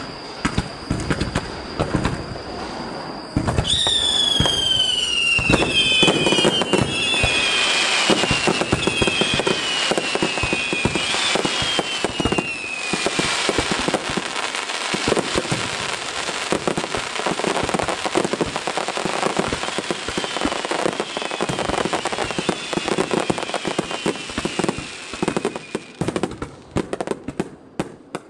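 Fireworks barrage: many shells bursting in quick succession with dense crackling, loudest from about four seconds in. Several falling whistles sound over the bangs early on and again later, and the bursts thin out to separate bangs near the end.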